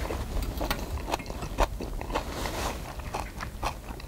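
A man chewing a mouthful of spicy marinated pork close to the microphone, with irregular wet mouth smacks and clicks.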